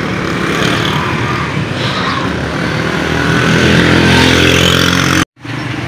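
Busy road traffic: cars and motorcycles passing close by. In the second half one vehicle's engine grows louder as it comes nearer, then the sound cuts off suddenly near the end.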